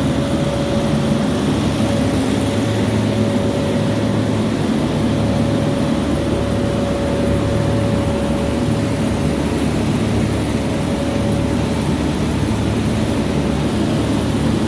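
Machinery running steadily: a constant low hum with a steady whine held over it.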